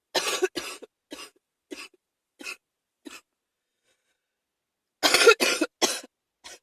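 A person with a cold coughing in fits: two hard coughs, then four weaker ones spaced about half a second apart, a pause of nearly two seconds, then another fit of hard coughs near the end.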